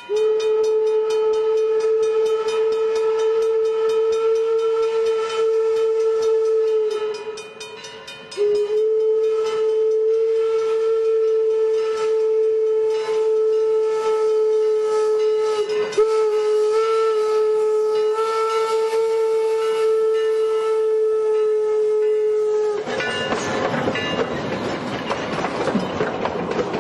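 Steam whistle of Eureka & Palisade No. 4, an 1875 Baldwin 4-4-0 wood-burning locomotive, blowing for a road crossing: one long blast, a short break, then another long blast broken briefly twice. Near the end the whistle stops and the locomotive and its cars pass close by, their clatter on the rails filling the sound.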